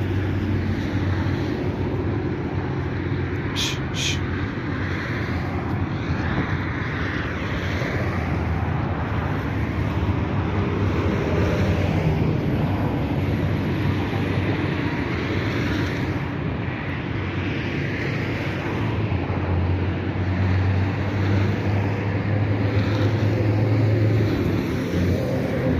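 Steady low engine hum with a rumbling noise, as of a motor running, and two short clicks about three and a half and four seconds in.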